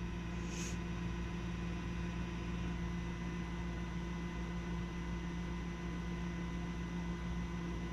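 Steady electrical hum: a low drone with a few fixed higher tones, unchanging throughout.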